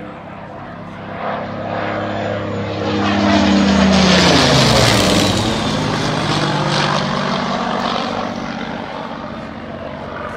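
Supermarine Spitfire's piston engine and propeller on a low pass overhead. The sound builds to its loudest about four seconds in while the engine note drops sharply in pitch as the plane goes by, then it carries on at a lower pitch and fades slightly.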